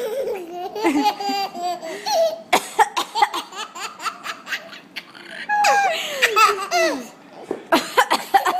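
A baby laughing hysterically in long runs of peals, many falling in pitch, set off by a woman's short sharp coughs about two and a half seconds in and again near the end.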